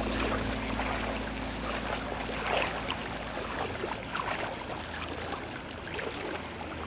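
Floodwater rushing and splashing, with many small irregular splashes.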